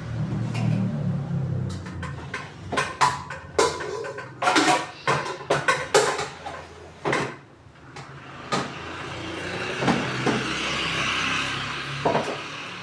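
Kitchen clatter: a quick run of knocks and clinks, as of dishes, lids or containers being handled and set down, followed by a steady hiss lasting a few seconds.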